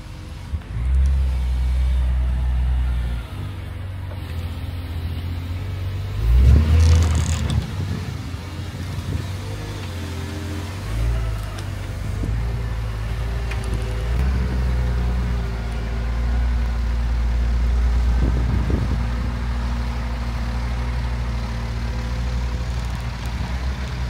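Diesel engines of a Case wheel loader and a farm tractor running under load and revving as the loader tows the tractor and its feed mixer wagon on a rope. The tractor is stuck with no traction on compacted snow. A louder surge of engine and tyre noise comes about six seconds in.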